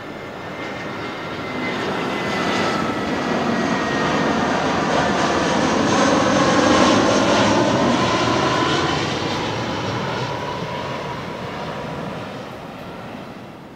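Jet airliner flying low past, its engine noise swelling to a peak about halfway through and then fading, with whining tones that drop in pitch as it goes by.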